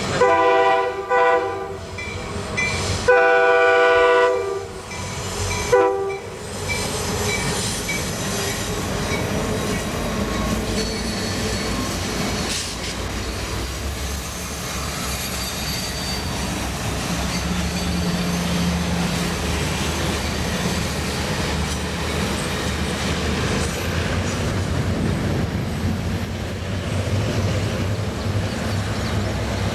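A diesel locomotive's multi-chime air horn sounds several blasts, a long one and then a short one near the end of the horn sequence, and the train then rumbles past with steady wheel and rail noise.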